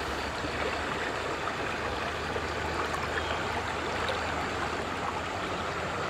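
Steady rushing of a shallow, fast-flowing river running over rocks.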